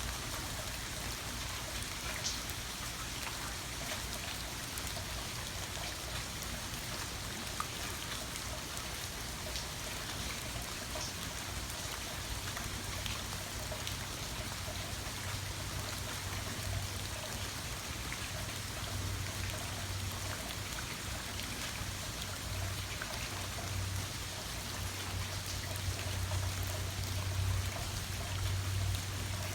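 Steady rain falling, with scattered sharp ticks of single drops. A low rumble grows stronger in the second half.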